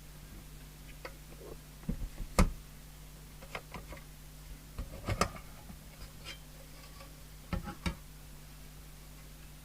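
Scattered sharp clicks and knocks of small parts and the radio's casing being handled on a workbench while the set is taken apart, the loudest knock about two and a half seconds in and a cluster near the end. A steady low mains hum runs underneath.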